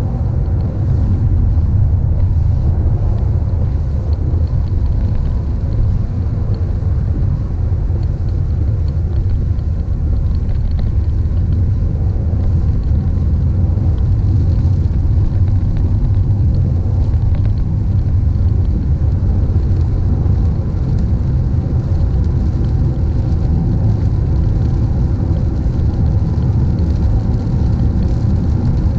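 Car driving along the road: a steady low rumble of road and engine noise with no change in pace.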